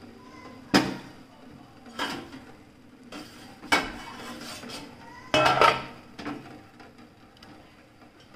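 Sharp clinks and clatters of steel cookware, four in all over a few seconds with the last a quick flurry, each with a brief metallic ring. They come as soft chhena balls are put one by one into thin sugar syrup in a steel saucepan to cook as rasgullas.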